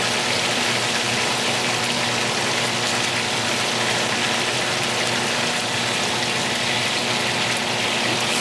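Trout pieces sizzling steadily as they fry in hot oil in a frying pan.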